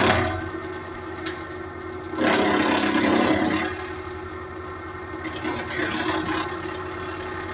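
Hydraulic wood chipper running steadily on its engine, with a louder, rougher surge about two seconds in that lasts about a second and a half.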